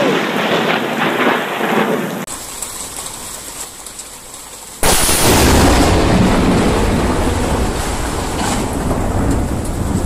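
Thunderstorm: the rumble of a close lightning strike over rain, fading over the first two seconds. About five seconds in, a very close thunderclap hits suddenly and runs on as a loud, slowly fading roar over heavy rain.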